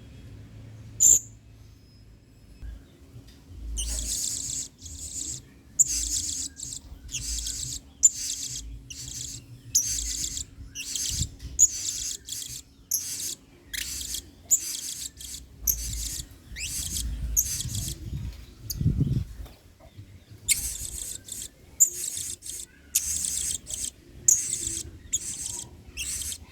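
Blue-crowned hanging parrot (serindit) calling: a long run of short, shrill, very high-pitched chirps, a few a second, starting about four seconds in with a short pause near the end. A single sharp click comes about a second in.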